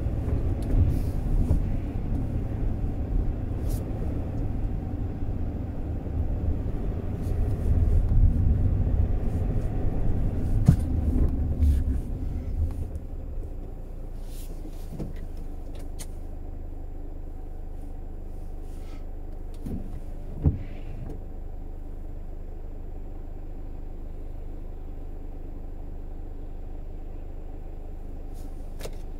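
Car driving, with a steady low road and engine rumble that dies down about 13 seconds in as the car slows, leaving a quieter steady low hum as it waits. A short knock sounds about 11 seconds in, and another about 20 seconds in.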